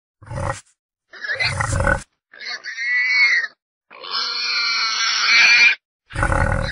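Wild boar grunting and squealing in separate calls: a short grunt and a longer grunt, then two higher-pitched squeals, the second about two seconds long, and another grunt near the end.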